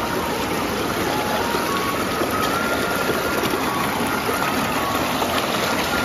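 Shallow hill stream running fast over rocks close by, a steady rushing of water.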